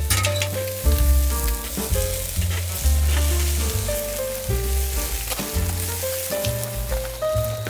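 Beef short ribs sizzling and crackling over a charcoal grill, a steady hiss, under background music with a bass line and melody.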